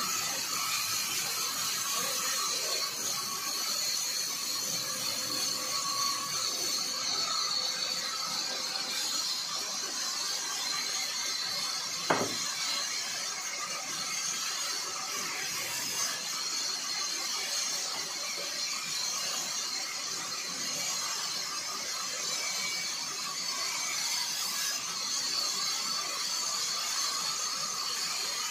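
Large vertical band saw running and ripping a bark-covered log lengthwise, a steady high whine and hiss of the blade in the wood. A single sharp knock about twelve seconds in.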